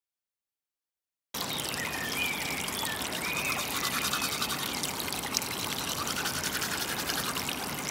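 Dead silence for about the first second, then a steady trickle of water with the scrubbing of a toothbrush against teeth.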